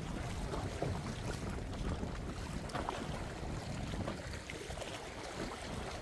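Sea waves washing and splashing, with wind buffeting the microphone in a steady low rumble.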